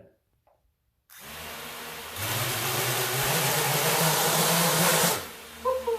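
A 3D-printed quadcopter's electric motors and 3D-printed propellers spinning up about a second in, throttled up to a loud, steady whir about two seconds in, then throttled back down near the end. The sound is called mean.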